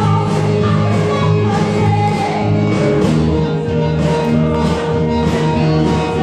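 A church praise band playing an upbeat worship song with a steady beat; the chord changes about halfway through.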